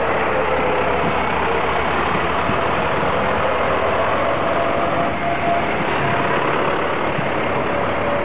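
John Deere tractors' diesel engines running as the tractors drive slowly past close by, a steady drone whose pitch drifts slowly.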